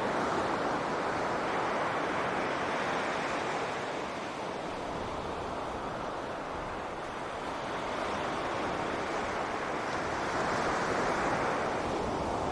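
Sea waves washing onto a beach: a continuous rush of surf that swells twice, at the start and again near the end, easing off in between.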